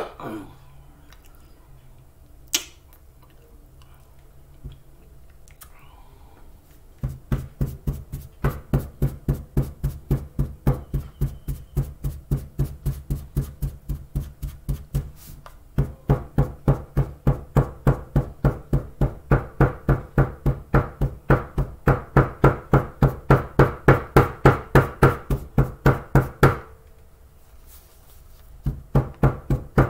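Steady knocking, about three a second: a paper cup of tapioca starch tapped down against a tabletop over and over to pack the powder firm. It comes in two long runs with a short pause in between.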